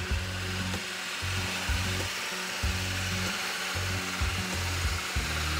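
Bowl gouge cutting the outside of a spinning wet-oak bowl on a wood lathe: a steady hissing shaving cut. The sound of the cut changes as the bowl wall is taken thinner.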